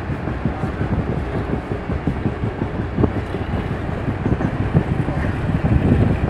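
Khushal Khan Khattak Express passenger train running at speed, heard from an open carriage window: a steady low rumble and rattle of the coach on the track, with wind rushing past.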